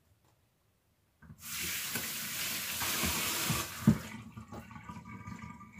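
Kitchen mixer tap running into a stainless steel sink for about two and a half seconds, then turned off with a single sharp knock, the loudest sound; quieter water sounds follow.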